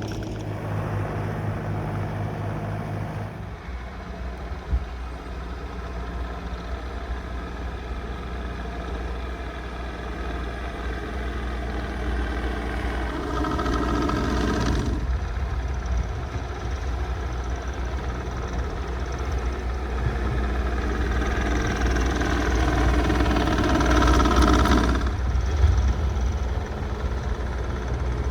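Case TR310B compact track loader's diesel engine running steadily. It works harder and gets louder for a couple of seconds around halfway and again for a longer stretch near the end, then eases back each time.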